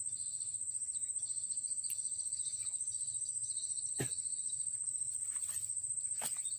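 Steady, high-pitched insect trill pulsing rapidly, with a weaker chorus of higher chirring below it. Two short clicks, about four seconds in and just after six seconds.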